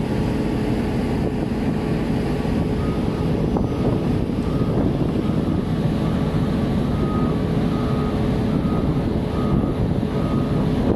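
Heavy crane's diesel engine running steadily at a constant speed, a low, even drone with a steady hum in it.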